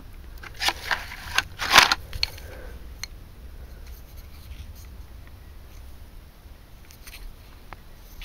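Short scraping and rustling handling noises, a quick cluster of them in the first two seconds, the loudest just under two seconds in, then only a low steady background.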